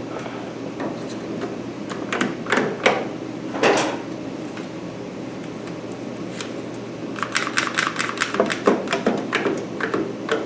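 One-handed bar clamps being fitted onto square steel tubing. There are scattered knocks and clatter of the clamps against the metal, then a quick run of ratchet clicks about seven seconds in as a clamp is squeezed tight, followed by a few more knocks.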